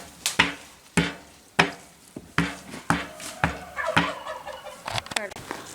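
Repeated metal clanks, about two a second, each leaving a short ringing tone, as metal parts of the sawmill are knocked or shifted.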